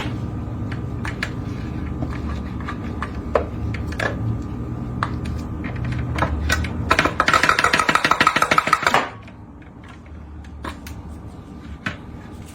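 Electric food processor running as it chops baked egg yolks: a steady motor hum with small clicks, growing louder and rattling for about two seconds, then cutting off suddenly about nine seconds in. A few light knocks follow.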